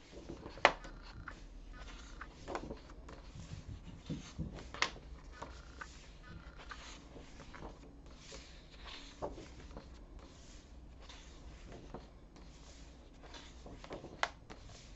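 Thick, card-like paper pages of a Secret Garden colouring book being turned by hand: rustling and flapping paper with a few sharp snaps, the loudest just under a second in and another near the end.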